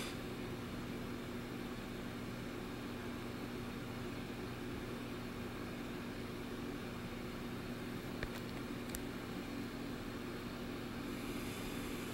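Steady low machine hum with hiss, a few faint clicks about eight to nine seconds in.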